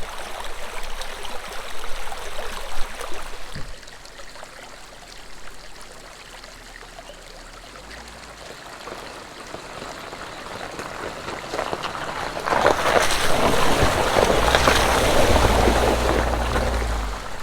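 Rain and water noise from a Jeep on a wet, muddy trail: a steady watery hiss with light crackle that eases off, then swells loud with a low rumble about twelve seconds in.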